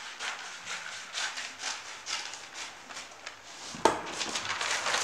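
Scissors cutting brown kraft paper along a curve, snipping about twice a second. About four seconds in there is a sharp tap and then paper rustling as the cut piece is lifted away.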